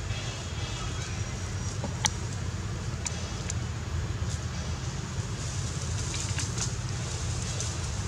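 Steady low rumble of wind on the microphone, with scattered crackling rustles and one sharp click about two seconds in, from leafy branches shaken by a young macaque swinging on them.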